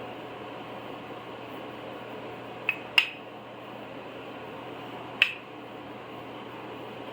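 Three short, sharp clinks of hard objects knocking together in a kitchen, each with a brief ring. Two come close together about three seconds in, the second the loudest, and a third comes about five seconds in, over a steady background hiss.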